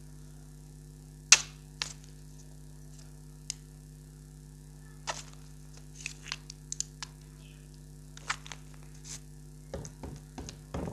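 Clear slime being pressed and worked by hand, giving scattered sharp pops and clicks at irregular moments, with a denser run of them near the end. A steady low hum runs underneath.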